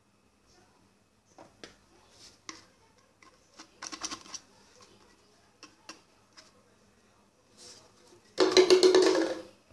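Knife blade cutting a small plastic bottle: scattered light taps and scrapes, a quick run of scraping about four seconds in, then a loud, rapid rasping burst about a second long near the end.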